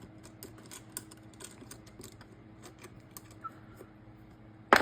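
Light, irregular clicking and tapping of small mount parts being handled and fitted together, ending in one louder clatter.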